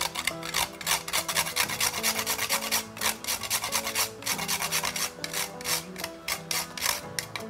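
A whole nutmeg being grated on a small fine metal hand grater: quick, repeated rasping strokes, a few a second.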